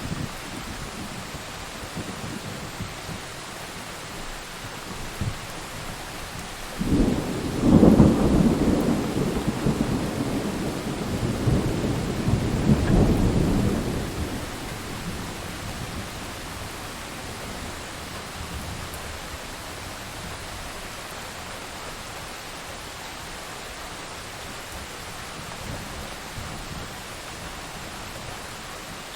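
Steady heavy rain with a loud rolling rumble of thunder about a quarter of the way in, building twice before dying away around halfway through.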